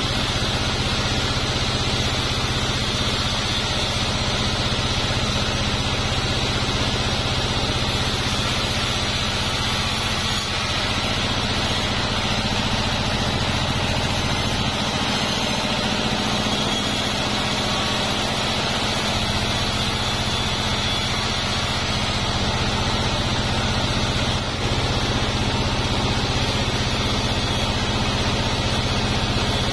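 Large sawmill band saw running steadily as it rips a plank of durian wood lengthwise, a continuous machine drone.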